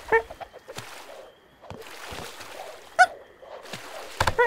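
Short, pitched comic cartoon vocal squeaks from the animated monkey characters over a low background hiss. One comes at the start, another about three seconds in, and a quick run of them near the end.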